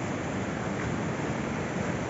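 A river in flood, its swollen water rushing steadily in a dense, unbroken noise that is heaviest low down.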